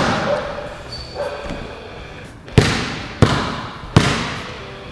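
Basketball bouncing three times on a concrete floor, about two-thirds of a second apart, each bounce sharp and echoing in a large hall.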